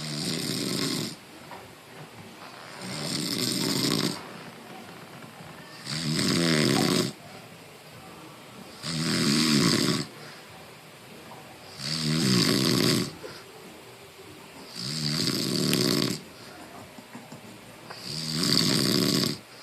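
A sleeper snoring steadily: about seven snores, each about a second long, one roughly every three seconds.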